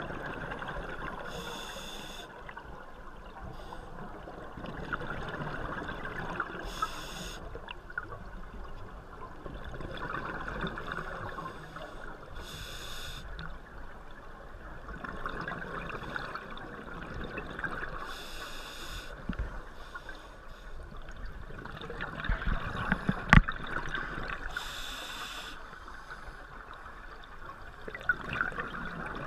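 Scuba diver breathing through a regulator underwater: a short hissing inhale about every five to six seconds, each followed by a longer gurgle of exhaled bubbles. One sharp knock about two-thirds of the way through.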